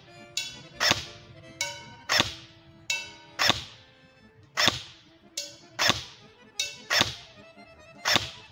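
Airsoft VZ58 replica firing a string of about a dozen single shots, roughly two a second. Each shot is a sharp crack with a short ringing tail.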